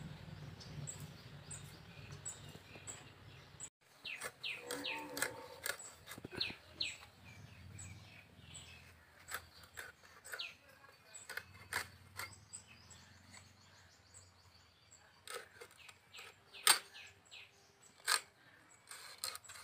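Scattered sharp clicks and cracks as rohu fish is cut on a boti, a curved blade set in a wooden foot-board, with the loudest cracks near the end. Small birds chirp for a few seconds early in the stretch.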